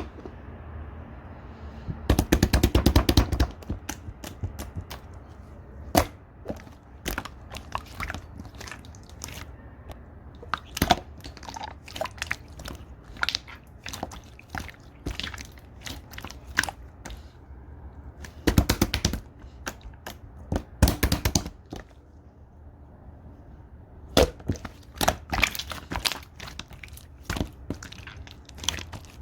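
Slime being squished and stretched by hand, giving off sharp pops and clicks from trapped air, scattered throughout with dense rapid runs of popping about two seconds in, twice near the middle, and again from about 24 seconds.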